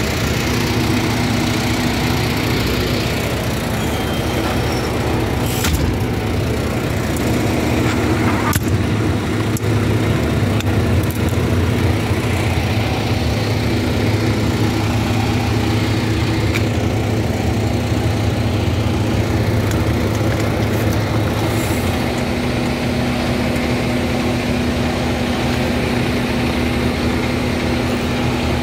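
Diesel engine of a 2021 Freightliner/Toyne squad fire truck idling steadily close by, a constant low hum with a steady tone in it. A couple of faint clicks come through several seconds in.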